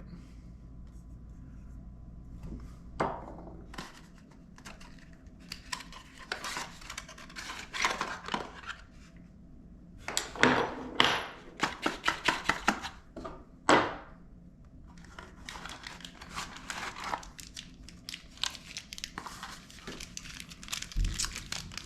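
Product packaging being handled and opened by hand: irregular bouts of crinkling, rustling and tearing, with a couple of sharper clicks.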